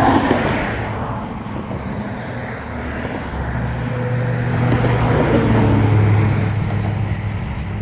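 Road traffic passing close by on a bridge: a continuous rush of tyres. About halfway through, a heavy vehicle's low engine hum comes in and grows louder as it goes by.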